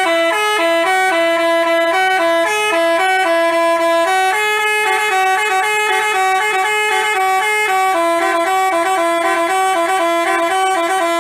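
Basuri multi-tone 'telolet' bus horn playing a tune: a loud brassy melody of quick stepping notes that hops between a few pitches, cutting off abruptly at the end.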